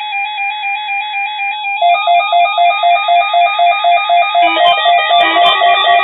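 Weather alert radio receivers sounding their electronic alarm beeps for a weekly test. One tone pulses about four times a second, a second, louder beeping joins about two seconds in, and more alarm tones stack on top near the end.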